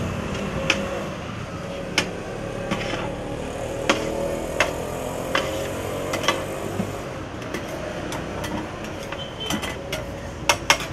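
Flat metal spatulas clanking and scraping on a large wok as a heap of fried noodles is tossed and chopped: sharp, irregular metal clinks about once a second, with a quick run of them near the end.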